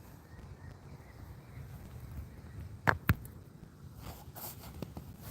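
Two sharp clicks in quick succession about three seconds in, a fifth of a second apart, over a low steady rumble, with a few fainter ticks near the end.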